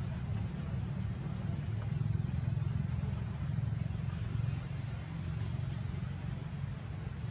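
A steady low rumble, a little louder between about two and four seconds in.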